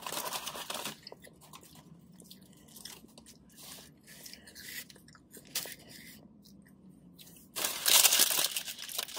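A paper Burger King bag rustling, briefly at the start and much louder for over a second near the end, with soft chewing and the crinkle of a ketchup packet in between.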